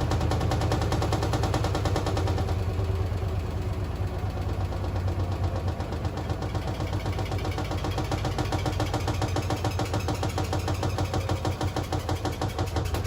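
Beko AquaTech washing machine running with a steady low hum and a rapid, continuous rattling knock, the bad noise it makes after only a week of use.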